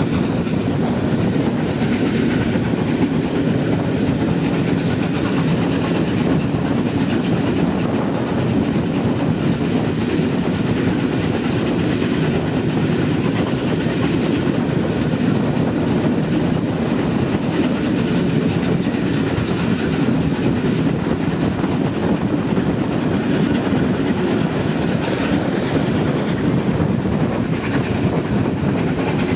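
Railway train running along the track: a steady, even rumble that holds without a break.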